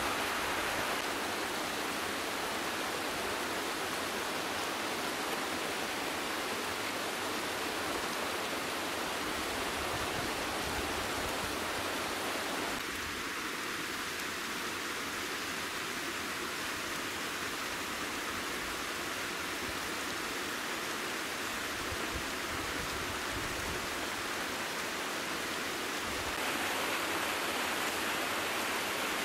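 Steady rush of water from a mountain stream and waterfalls in a rocky gorge. The sound shifts abruptly in tone about 13 seconds in and again near the end.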